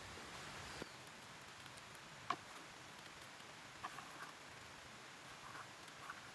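Faint, steady background hiss broken by a few short, soft clicks and taps, the sharpest a little over two seconds in.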